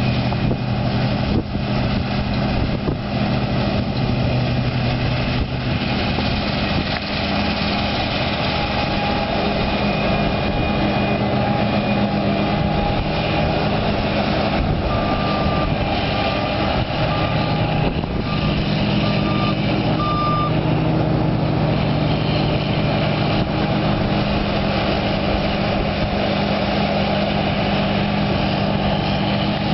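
Heavy farm machinery's diesel engine running steadily. Around the middle comes a series of about six short, high beeps.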